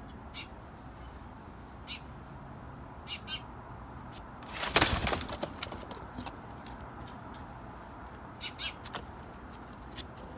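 Young chickens giving short, high chirps now and then, with a loud burst of wing flapping about four and a half seconds in, followed by a scatter of clicks.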